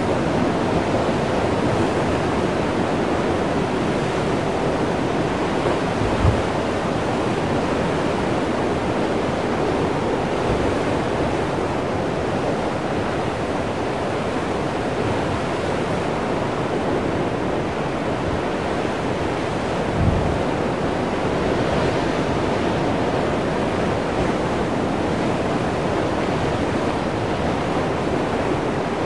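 Heavy ocean surf breaking and churning among rocks, a steady wash of foam and spray, with two brief low thumps, about six seconds in and again about twenty seconds in.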